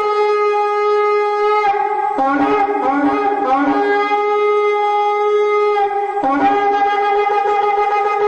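Ram's-horn shofar blown in a long held note. Between about two and four seconds in, it breaks into several quick drops to a lower note and back, and it dips briefly again near six seconds.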